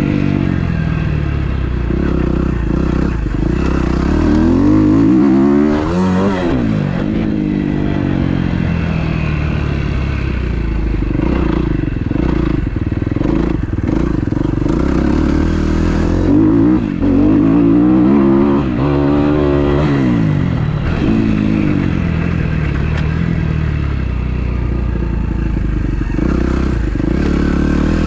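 2012 Kawasaki KX250F's four-stroke single-cylinder engine being ridden hard, revving up and down with the throttle. The pitch climbs and drops repeatedly, with sharp climbs about a quarter and two-thirds of the way through.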